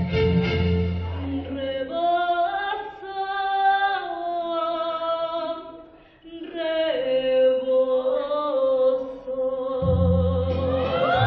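A woman singing solo into a microphone, holding long notes, with a brief break about six seconds in. A low instrumental backing sounds under her voice at the start and comes back near the end.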